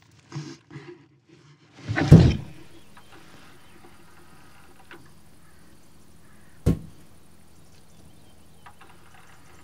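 Car crash: one loud impact about two seconds in, followed by a low steady hum and a single sharp knock near the end.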